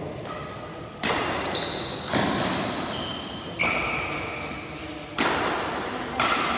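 Badminton rackets striking a shuttlecock in a doubles rally, five sharp hits about one to one and a half seconds apart, each ringing on in a large echoing hall. Between the hits, short high squeaks from players' shoes on the court floor.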